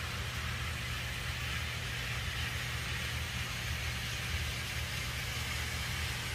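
Model train running on track: the Korail 8201 electric locomotive model's motor makes a steady hum, and the wheels of the loco and its freight wagons roll with an even hiss.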